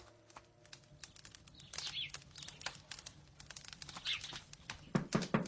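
Birds chirping softly in short falling calls, then near the end a quick run of about five knocks at a door.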